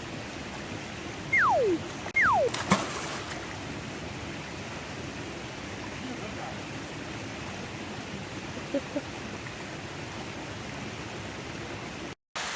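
Steady hiss of water, with two quick whistle-like tones falling sharply in pitch about one and a half and two seconds in, followed by a sharp click.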